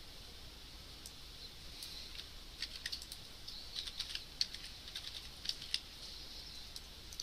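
Faint computer keyboard typing: scattered short key clicks, bunched mostly in the middle stretch.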